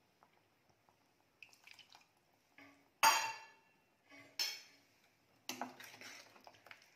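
Metal ladle striking the rim of a metal pressure cooker pot twice, the first clink loud and ringing, then scraping and stirring through thick curry inside the pot.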